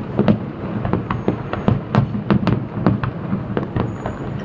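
Fireworks display going off in a rapid, irregular series of sharp bangs, about four a second, over a steady low rumble.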